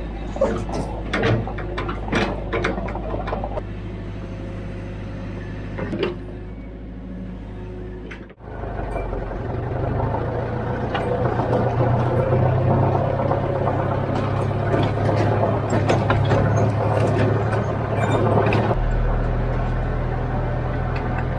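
Diesel engine of heavy earthmoving machinery running steadily, with scattered metal clanks during the first several seconds. After a sudden break about eight seconds in, the engine is louder and rougher.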